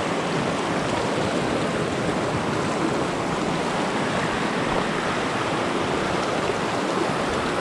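Shallow rocky stream rushing over stones close by, a steady, even rush of water.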